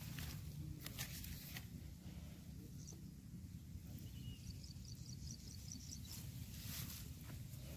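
Faint outdoor ambience: a low steady rumble with a few brief rustles, and faint high chirps in the background twice.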